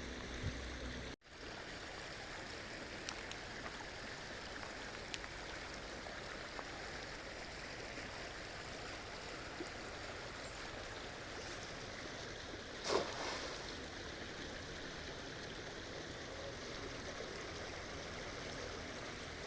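A river flowing: steady rushing water. The sound drops out briefly about a second in, and one short, louder sound stands out about two-thirds of the way through.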